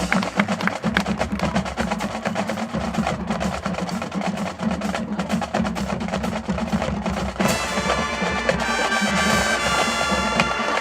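Marching band playing: the drumline plays a run of rapid drum strokes, and about seven seconds in the horns come in with sustained chords over the drums.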